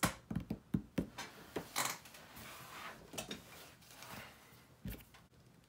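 Scattered light clicks and knocks of hands handling tools and parts at a workbench: a paintball high-pressure regulator body set down on a rubber mat and a strap wrench being got out. The knocks come thickest in the first two seconds and thin out after.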